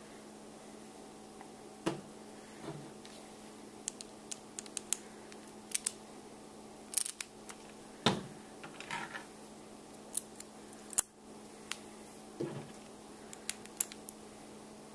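Small metal plates, screws and nuts from a toy robot construction kit clicking and clinking at irregular moments as they are handled and fitted together, with a small screwdriver working a screw near the end.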